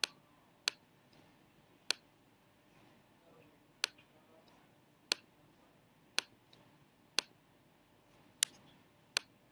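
Computer mouse button clicking, about nine single sharp clicks spaced unevenly, roughly one every second.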